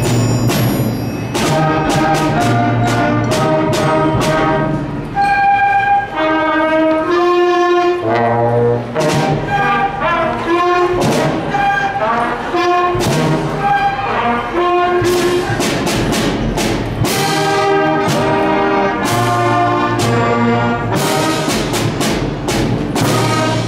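Youth concert band playing a lively piece with clarinets, flutes, saxophones, trumpets and tubas, in short detached notes with frequent sharp percussion hits.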